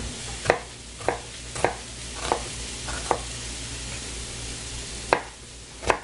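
Chef's knife cutting half an onion on a plastic cutting board: about seven sharp knocks at uneven spacing, five in the first three seconds and two more near the end, over a steady sizzle of corn heating in a pan.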